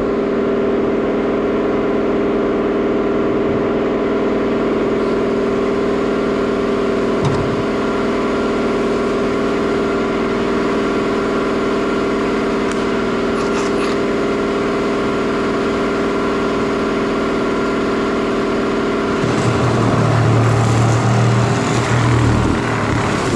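Laser cutter running: a loud, steady machine hum with several held tones. About three-quarters of the way through, a deeper hum comes in and the sound grows slightly louder.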